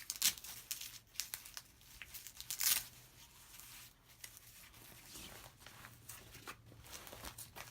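Nylon ballistic vest carrier being handled as a panel is seated: short ripping rasps of hook-and-loop fastener and fabric rustling, the loudest about a quarter second in and again near three seconds.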